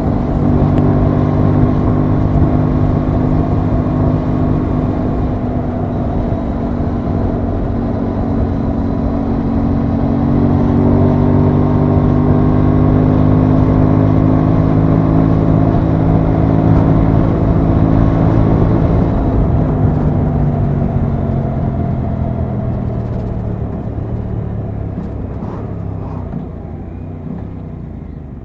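Aprilia Tuono 660's parallel-twin engine pulling the bike at road speed, with wind noise over it. The engine note holds steady, rises a little around the middle, then falls in pitch and loudness over the last several seconds as the bike slows.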